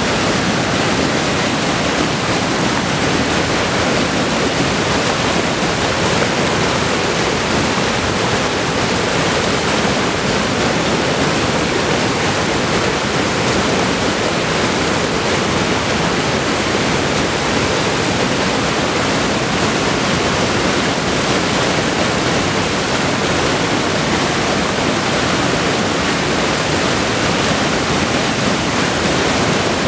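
Water rushing steadily over river shoals, a loud even rush.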